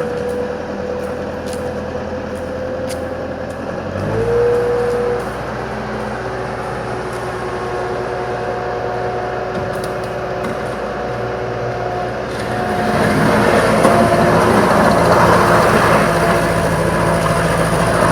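Bobcat 864 skid steer loader's engine running steadily; about four seconds in its sound changes suddenly as a deeper rumble comes in, and from about thirteen seconds in it gets louder, as when the engine is run up.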